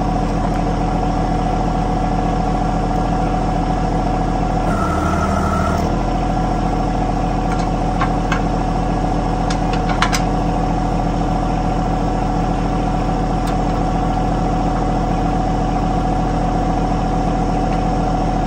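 Compact tractor's diesel engine idling steadily, with a brief change in its sound about five seconds in. A few light metal clicks come around eight to ten seconds in.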